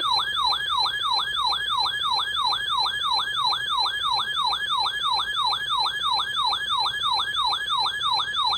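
Electronic siren-like alert tone, a rapid falling sweep repeated about three to four times a second without a break. It is the attention signal that comes ahead of a broadcast emergency weather warning.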